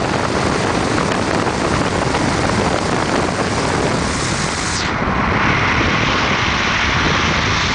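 Loud rush of wind and road noise at highway speed, with a 2007 Harley-Davidson Street Bob's V-twin running alongside in the mix. The high hiss thins out about five seconds in.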